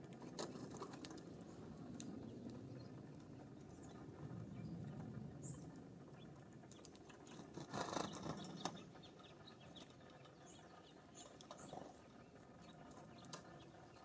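Faint outdoor background with scattered light taps and clicks from small birds pecking and landing at wire suet feeders, a louder cluster of taps about eight seconds in, and a few short high chirps.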